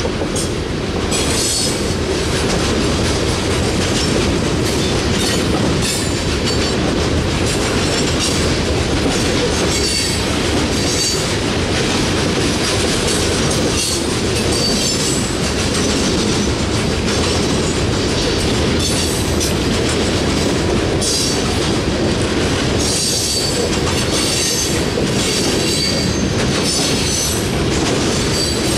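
Coal hopper cars rolling past close by: a steady rumble and clatter of steel wheels on rail, with brief high wheel squeals every second or two.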